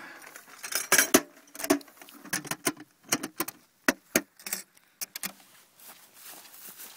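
Handling noise: a plastic bag crinkling and clicking as it is worked into the mouth of a gasoline mortar, a quick run of sharp crackles that stops about five seconds in.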